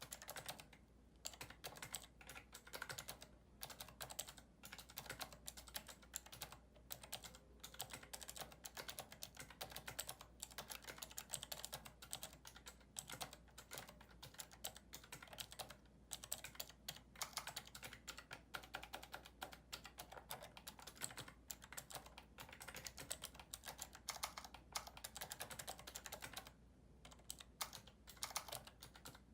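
Fast, continuous typing on a mechanical keyboard with clicky Cherry MX Blue switches: a dense stream of key clicks, broken by short pauses about a second in and near the end.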